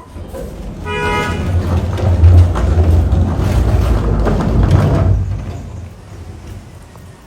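A vehicle horn gives a short toot, and a motor vehicle passes close by, its engine rumble swelling and then fading away about five seconds in.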